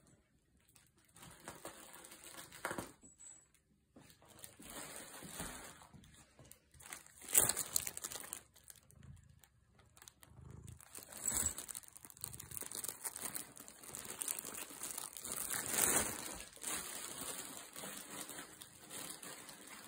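Crinkly fabric cat tunnel shaped like a fish rustling and crinkling in fits and starts as kittens scramble inside and around it, loudest about a third of the way in and again about three-quarters through.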